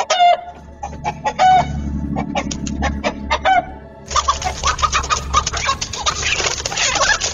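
Chickens squawking in alarm: a run of short, sharp repeated calls, then from about four seconds in a denser, noisier flurry of squawking and commotion as the flock is attacked.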